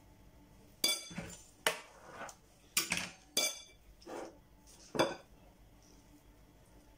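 A metal spoon clinking against a ceramic bowl while scooping out fish filling: about seven sharp clinks, each with a brief ring, between about one and five seconds in.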